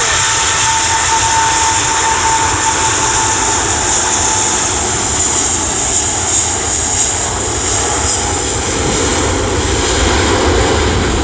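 Jet engines of an Emirates airliner at take-off power as it departs: a loud, steady rumble with a high whine on top, and a steady tone that fades out about halfway through.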